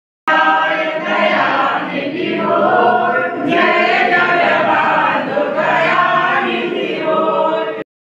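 A group of worshippers singing a devotional chant together, many voices in unison. It starts abruptly just after the beginning and is cut off abruptly near the end.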